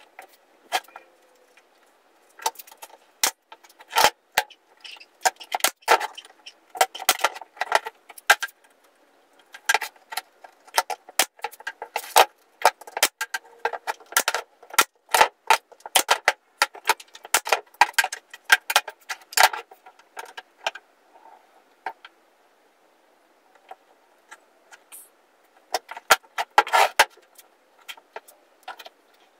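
Wooden pieces clacking and knocking as they are handled and set down, in irregular runs of sharp clicks with a lull about three-quarters of the way in.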